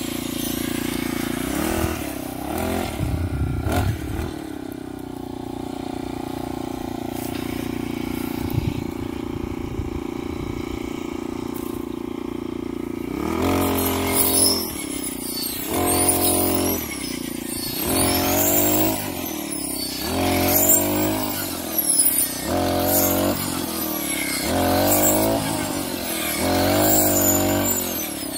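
Backpack brush cutter's small engine running steadily, then from about halfway revving up and dropping back again and again, roughly every two seconds, as the blade is worked through rice stalks.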